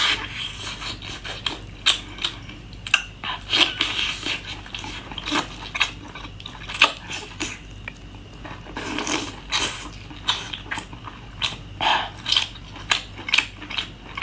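A person chewing and biting food close to the microphone: irregular wet mouth smacks and crunchy clicks, several a second.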